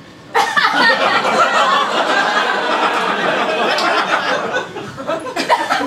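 Audience laughing. The laughter breaks out suddenly just after the start and dies down near the end.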